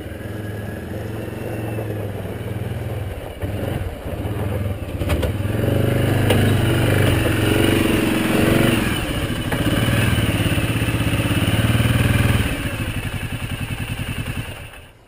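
ATV (four-wheeler) engine running and pulling harder as the quad is driven up into a pickup truck bed, with a couple of sharp knocks a few seconds in. Near the end the engine drops back to a slower, pulsing idle.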